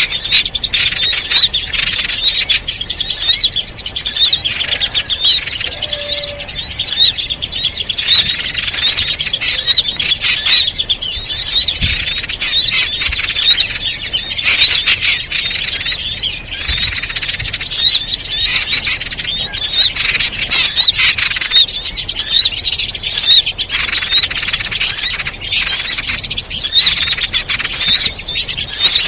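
A dense, loud chorus of many small birds chirping and twittering nonstop in quick, high-pitched notes, the overlapping excited calls of a bird-lure recording.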